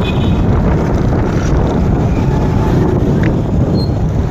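Wind rumbling on the microphone of a moving motorcycle, with engine and street traffic noise underneath.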